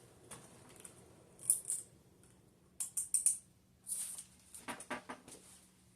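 Emerson K55-motored ceiling fan coasting down after being switched off, with short scratchy clicks and rattles at irregular intervals over a faint steady hum.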